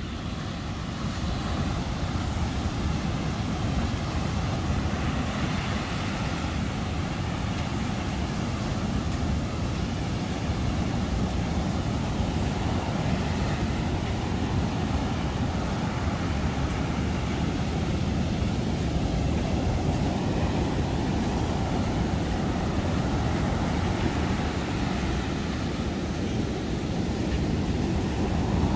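Rough surf breaking and washing up a sandy beach, with wind rumbling on the microphone; it grows louder about a second in.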